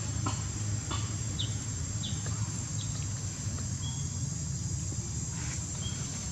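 Outdoor ambience: a steady high insect drone over a low rumble, with several short high chirps about a second apart.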